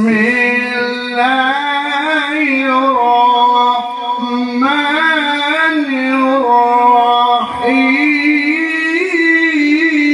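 A man reciting the Quran in the melodic tilawah style, drawing out long ornamented notes that waver and step in pitch, with a short break for breath about seven and a half seconds in.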